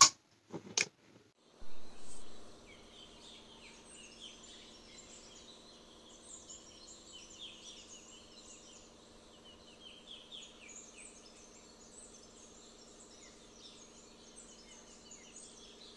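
Faint birdsong: many small birds chirping in quick, overlapping calls over a low steady hum. A couple of short knocks and a brief louder sound come in the first two seconds.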